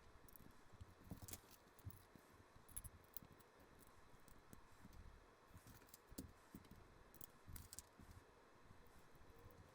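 Faint, scattered clicks and light rattles of plastic LEGO bricks being handled and pressed together during assembly.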